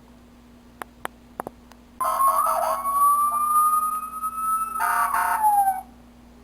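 Battery toy fire engine's electronic siren: one long tone that climbs slowly for nearly four seconds, then drops in pitch and cuts off suddenly. A few light clicks come before it starts.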